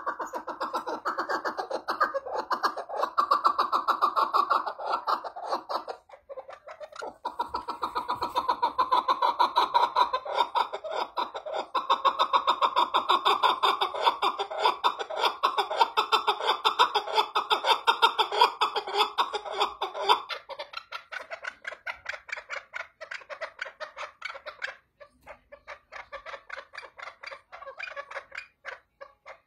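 Chukar partridge calling in long runs of rapid, repeated chuck notes. The calling breaks off briefly about six seconds in and turns quieter after about twenty seconds.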